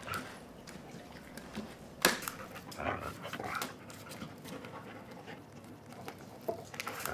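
A dog panting and chewing, with scattered clicks and one sharp knock about two seconds in.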